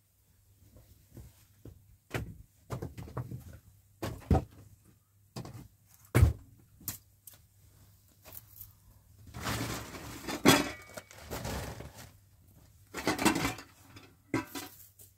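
Irregular knocks, thuds and clatter of objects being handled, with two longer noisy stretches about ten and thirteen seconds in.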